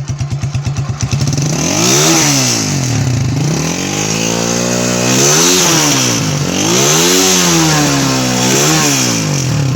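Tauro CG 200 single-cylinder four-stroke motorcycle engine, through its stock factory muffler, idling briefly and then revved hard up and down several times.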